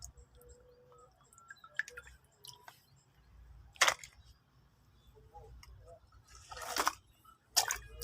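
Plastic toy car being handled and washed in water: scattered light clicks and a few brief watery swishes, the loudest about four seconds in and near the end.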